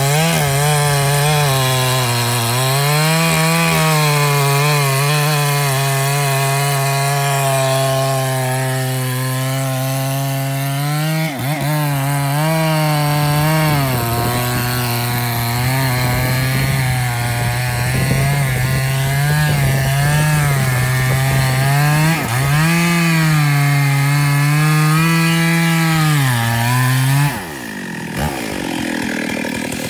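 Two-stroke petrol chainsaw at full throttle cutting into the base of a mahogany trunk, its engine note dipping and recovering as the chain bites into the wood. Near the end it is let off and the engine falls to idle.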